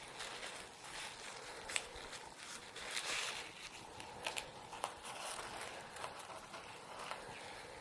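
Crumpled paper tissue rustling as an ink-stained steel dip-pen nib is wiped, with a few light clicks of the metal nib being taken off the holder and set down.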